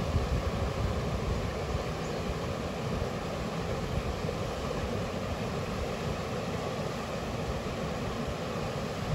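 Steady rush of river water, with wind buffeting the microphone.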